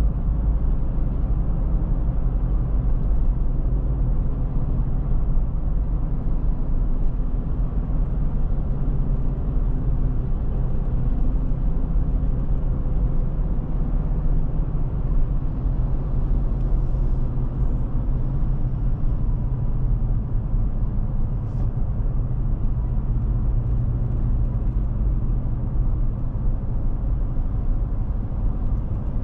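Car driving at a steady speed: a constant low rumble of engine and road noise.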